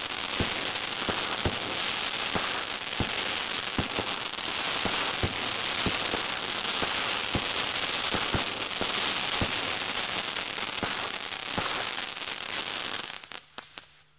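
Raptor (S6037B) firework firing: a dense, steady crackling with scattered sharp pops. It dies away about 13 seconds in, leaving near silence.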